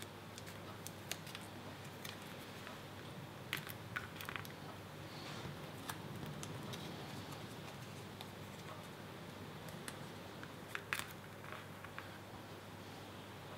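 Quiet handling sounds: a scattering of light clicks and taps as paper labels are peeled and pressed onto plastic jar lids, the sharpest pair near the end, over a faint steady low hum.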